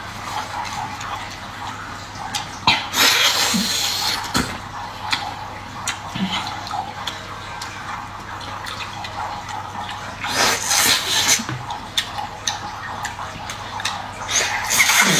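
Water splashing and running in a few short bursts, with scattered small clicks and knocks in between.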